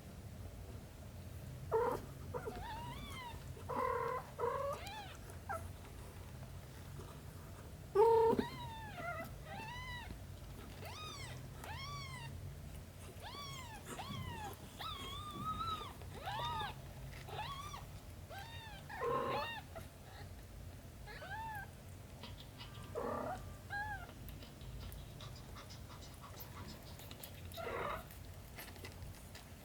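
Kittens mewing over and over: many short, high-pitched cries that rise and fall in pitch, with a few louder, lower cries among them, over a faint steady hum.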